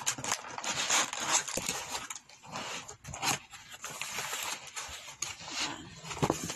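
Laptop packaging being unpacked by hand: irregular rustling and crinkling of plastic and cardboard, with scattered short taps and clicks.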